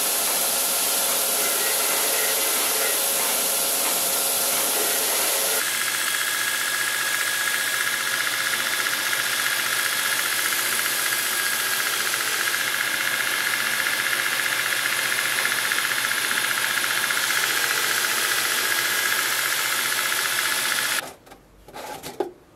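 Belt grinder running with a steel sword blade held against the belt, then a second grinding machine grinding the blade, throwing sparks, a steady loud hiss over a low hum. The grinding stops suddenly near the end, followed by a couple of short metal knocks from a lid on a metal tube.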